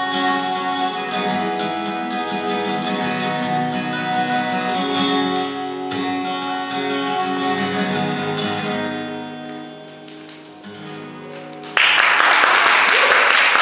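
Solo acoustic guitar playing the end of a piece, its last notes ringing out and fading. About twelve seconds in, applause breaks out suddenly and loudly.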